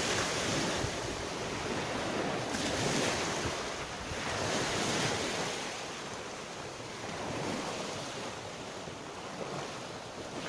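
Sea surf washing onto the shore, the rush of the waves swelling every two or three seconds and easing toward the end, with wind buffeting the microphone.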